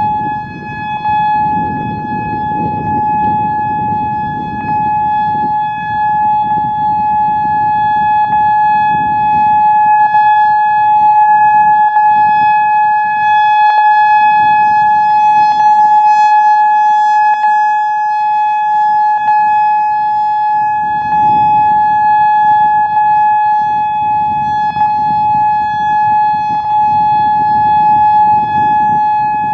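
Whelen WPS-3000 electronic siren sounding its single-tone steady alert, rising and falling in loudness as it rotates. A sharp pop cuts through the tone about every two seconds, which the uploader takes for the aging UV siren controls.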